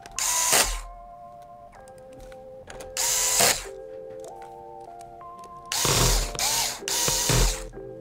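Electric screwdriver driving the screws of a Chromebook's bottom cover back in, running in four short bursts, the last two close together.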